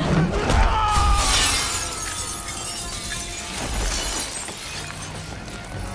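A large pane of glass shattering under a heavy impact, with a loud crash at the start and shards raining down and scattering over the floor, fading over the next few seconds.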